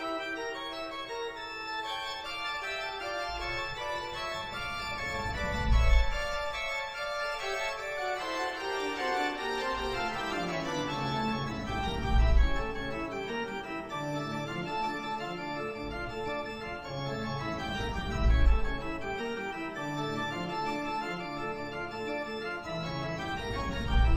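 Background music of sustained organ chords, with a deep low swell about every six seconds.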